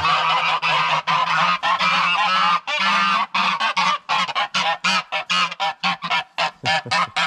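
Domestic grey geese honking loudly in alarm as they guard their nests. The calls run together in a continuous din at first, then from about four seconds in break into rapid separate honks, about five a second.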